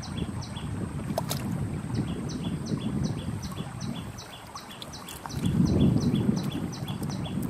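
Low rumbling wind on the microphone, swelling louder a little past halfway, over a short high chirp that repeats about three times a second.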